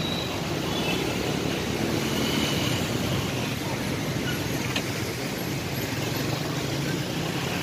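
Steady street noise of motor scooter engines running in traffic.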